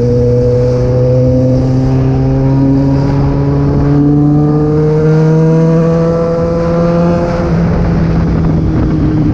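Yamaha XJ6's 600 cc inline-four engine pulling under steady acceleration while riding, its pitch climbing slowly for about seven seconds, then easing off slightly and holding steady near the end. Wind rush on the microphone underneath.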